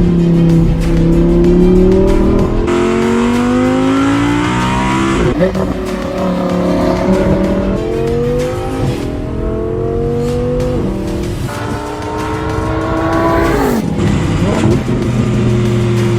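Audi R8's V10 engine accelerating hard through the gears: its pitch climbs, then drops at each upshift, several times over.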